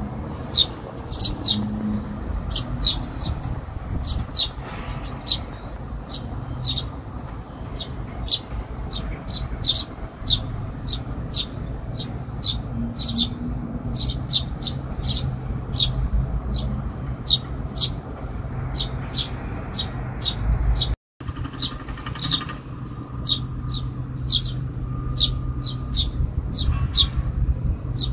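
Eurasian tree sparrows chirping: short, sharp, repeated calls, about one or two a second, typical of fledglings begging a parent for food. A steady low hum of city traffic runs underneath.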